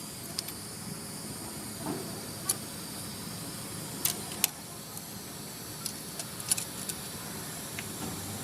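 Scattered sharp clicks and taps, about a dozen, from tools and parts being handled during an engine teardown, the loudest pair about four seconds in, over a steady background hiss.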